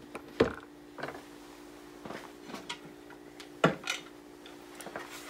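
Sharp metal clicks and knocks from handling the reassembled M1 Garand action in its cleaning cradle. The two loudest come about half a second in and a little before the four-second mark, with a few lighter taps between them.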